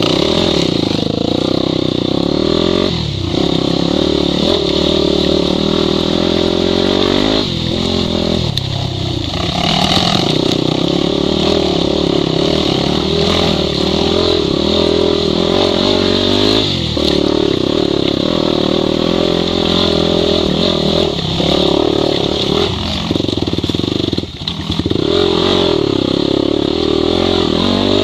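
Yamaha WR250 enduro bike's single-cylinder four-stroke engine running under load up a rocky trail, heard close from the rider's own bike. The engine note rises and falls with the throttle and dips briefly several times.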